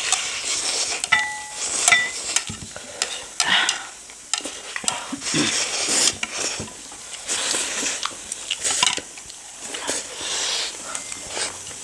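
Close-up eating sounds: spicy noodles and momo in soup being slurped and chewed in short repeated bursts, with utensils clicking against the dishes.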